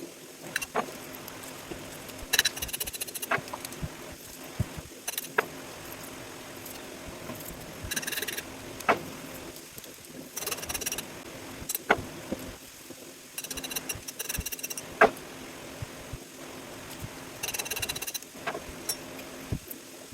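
Metal knocks and clanks from pump parts being broken apart for scrap, with five short bursts of a high buzzing sound about a second long each.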